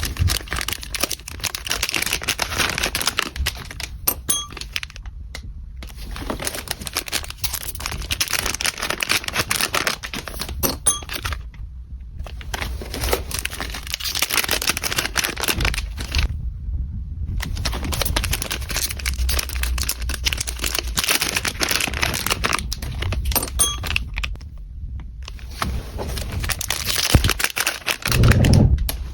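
Packaging being handled: crinkling and tearing in stretches of several seconds, with brief pauses between them.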